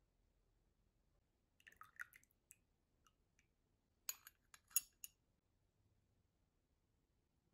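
Faint clicks and light taps as muffins on sticks are moved around on a wooden serving board: a small cluster about two seconds in and a sharper cluster about four to five seconds in, otherwise near silence.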